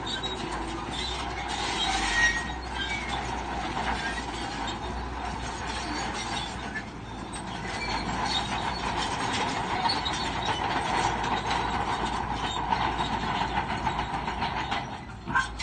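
Crawler bulldozer working: a continuous metallic clatter from its steel tracks over the running diesel engine.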